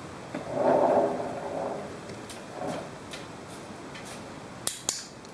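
Skateboard wheels rolling on a concrete floor, a rumble that swells and fades about a second in. Near the end come two sharp clacks a fraction of a second apart as the dog paws at the board.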